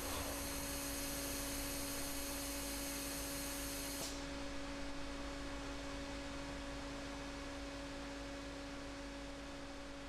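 A steady low hum made of two held tones, fading slowly.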